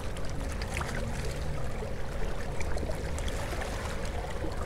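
Small waves lapping and trickling against the shoreline rocks, with a low wind rumble on the microphone and a faint steady hum.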